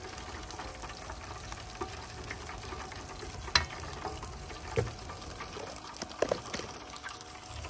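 Battered pork chops deep-frying in the hot oil of a T-fal electric deep fryer: a steady sizzle with scattered crackles, and one sharper pop about three and a half seconds in.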